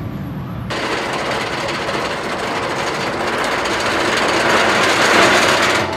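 Roller coaster train running along its track over a wooden support structure, a loud, even roar that starts suddenly about a second in, grows louder to a peak near the end, then cuts off abruptly.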